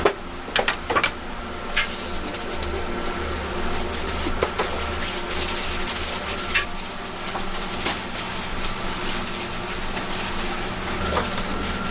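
A steady mechanical hum with a pulsing low rumble, broken by a few sharp clicks and knocks, most of them in the first two seconds.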